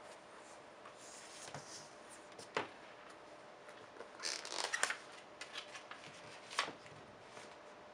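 Paper rustling and light taps as the paper band is slid off a new hardcover planner and the planner is handled on a desk. There is a sharp tap about two and a half seconds in, a run of rustling around the middle, and another sharp tap near the end.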